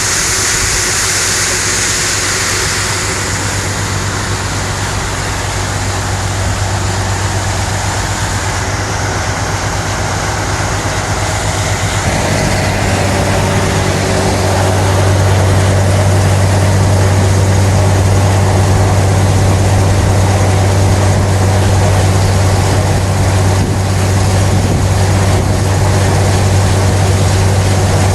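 Tractor engine running steadily under load while pulling a deep ripper through compacted ground, a low drone that grows louder and fuller about halfway through.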